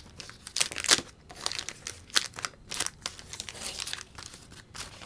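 The wax-paper wrapper of a 1989 Donruss wax pack being torn open and crinkled by hand: a string of sharp, crackling rustles.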